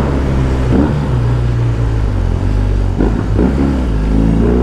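BMW R18's big boxer-twin engine running with its exhaust flap open, a deep steady exhaust note with short throttle blips, rising then falling, about a second in and again about three seconds in.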